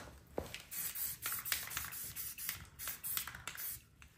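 Aerosol spray paint can spraying onto a rifle stock in a series of short hisses with brief gaps between them.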